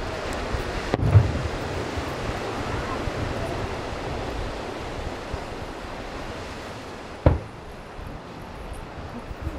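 Two distant booms from aerial firework shells, a sharp one about a second in and another about seven seconds in, over a steady wash of surf and wind on the microphone.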